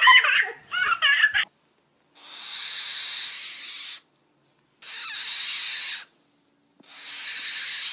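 A toddler's high-pitched squealing laughter, cut off about a second in, then three long hisses, each more than a second long, with short silences between them.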